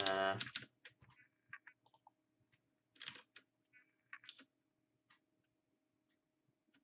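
Scattered taps and clicks on a smartphone, the loudest about three and four seconds in, over a faint steady hum.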